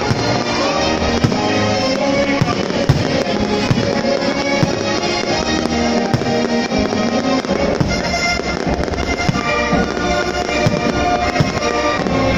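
Aerial fireworks salute bursting in repeated, irregular bangs and crackles over loud music.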